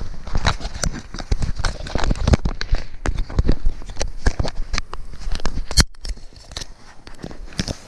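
Dense, irregular crackling clicks and knocks from fingers handling an action camera, rubbing and tapping on its case and microphone. The sound cuts out briefly just before six seconds in.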